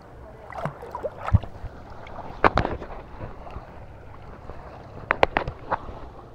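Seawater splashing and sloshing around a handheld camera at the surface as it dips under and comes back up, with irregular sharp splashes over a steady watery hiss.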